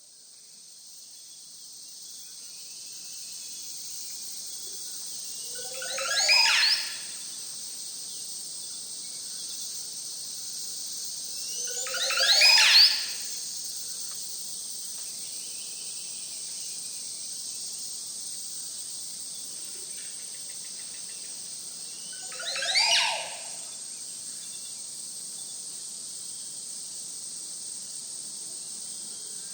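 Rainforest ambience: a steady high-pitched drone of insects, fading in over the first few seconds. Three times, about six to ten seconds apart, a loud animal call sweeps sharply upward in pitch, each lasting about a second.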